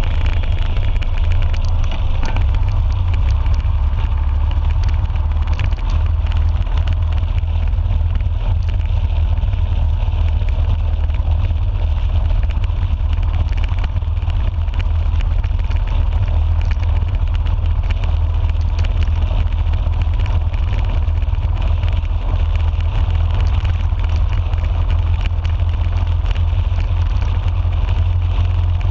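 Motorcycle cruising at a steady road speed: the engine running under heavy, steady wind rumble on the handlebar-mounted camera's microphone.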